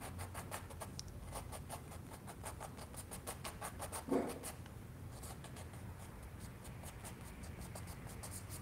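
Small paintbrush stroking oil paint onto a canvas in faint, short strokes, several a second. There is one brief low sound about four seconds in.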